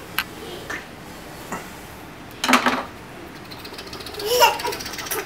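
A toddler's brief excited vocal squeal rising in pitch near the end, leading into giggling, with a short burst of noise about halfway through.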